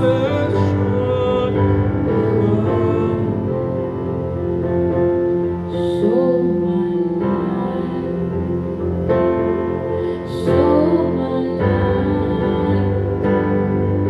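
Slow instrumental worship music: sustained bowed strings, cello-like, and piano hold long chords that change every second or two, with a brief sliding note twice.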